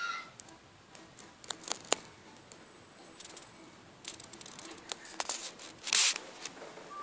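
Laughter being held in close to a microphone: scattered small clicks and breaths, then a short, hard burst of breath about six seconds in as it breaks through.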